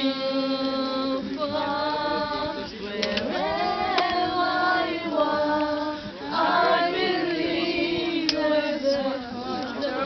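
A group of voices singing a song together, holding long sustained notes.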